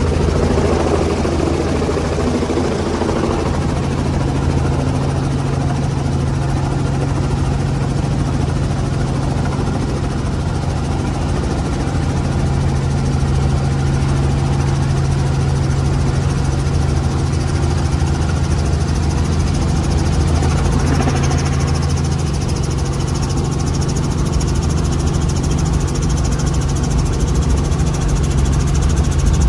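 Robinson R44 Raven helicopter's piston engine and rotor running steadily, heard from inside the cabin during a hover-taxi.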